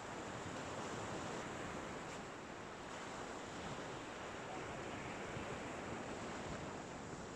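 Small waves breaking and washing onto a shingle beach: a steady surf hiss.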